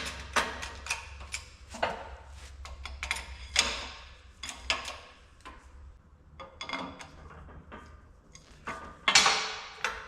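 Irregular metallic clicks and clinks of tools and metal parts being handled while a circlip is fitted into a CV joint assembly. The clicks are quick and close together at first, then sparser, with a louder clank near the end.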